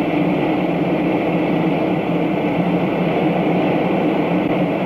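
Ring of gas burners burning steadily around a steam locomotive's steel driver tire, a continuous even rush of flame. The tire is being heated so that it expands enough to be shrink-fitted onto the wheel.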